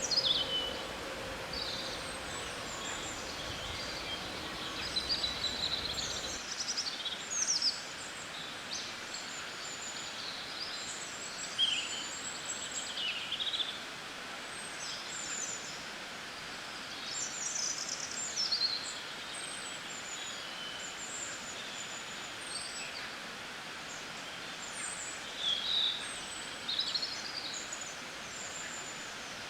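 Several songbirds chirping and singing in short, high, quick calls and trills, scattered throughout over a steady background hiss. A faint low rumble underneath drops out about six seconds in.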